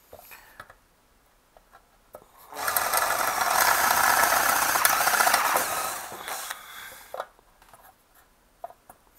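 Handheld electric drill boring a grommet hole through a powder-coated sheet-metal amplifier chassis. The bit grinds through the metal for about three seconds, starting a couple of seconds in, then fades out around seven seconds.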